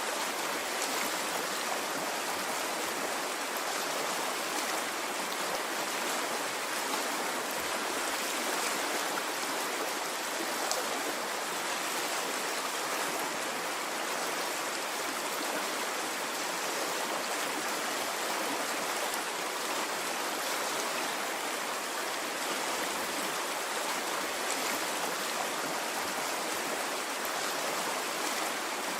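Water flowing in a stream, a steady, even rush without breaks or swells.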